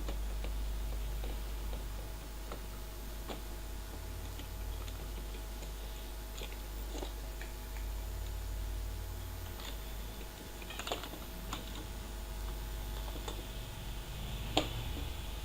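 Scattered small clicks and taps of laptop parts and connectors being handled as the motherboard is lifted out, over a steady low hum, with the sharpest click near the end.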